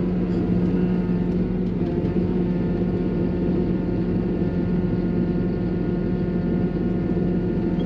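Tractor engine running at a steady speed, a constant hum with an unchanging pitch.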